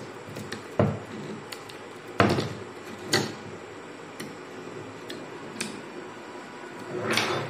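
Scattered sharp clicks and knocks of a steel recoil-starter mainspring and needle-nose pliers against the starter housing of a Honda EM650 generator as the spring is worked out. A louder clatter comes near the end as the spring springs loose and uncoils.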